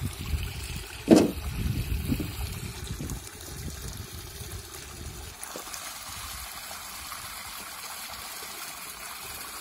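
Water gushing from a garden hose into a steel pot of water, splashing as tubers are scrubbed by hand, with one loud thud about a second in. After about three seconds the water settles into a steadier rush.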